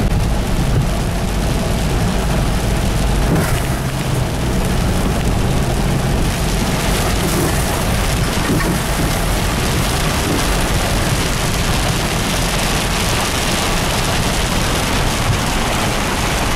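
Heavy rain falling on a car's roof and windshield, heard from inside the cabin, over the steady low rumble of the engine and tyres on a wet dirt road. The hiss of the rain grows stronger after about six seconds.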